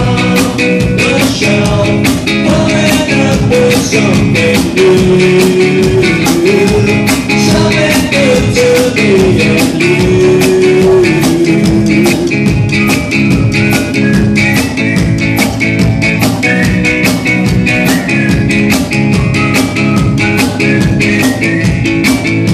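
Live rock band playing loud: drums keep a fast, steady beat under guitars, with a melodic line gliding up and down over it in the first half.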